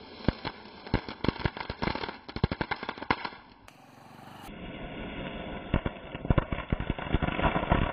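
Firecrackers crackling: rapid, irregular sharp pops, several a second, in two runs with a brief lull a little before halfway.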